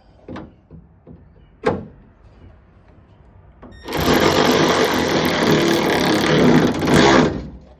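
A cordless electric ratchet runs steadily for about three seconds, spinning a 10 mm nut down onto a door handle's stud. Before it, a couple of light clicks of metal parts being handled.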